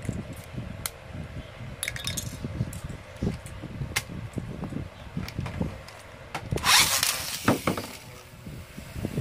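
Small plastic and metal clicks of a Beyblade spinning top being fitted together by hand. About two thirds of the way in comes a loud, brief rasping rip as the top is launched, followed by a few sharp knocks as it lands and spins in a plastic stadium.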